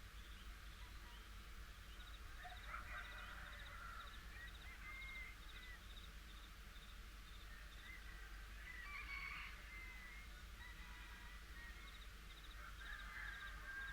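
Faint bird calls, short and squiggly, heard four or five times, over a fast high-pitched pulsing that comes and goes.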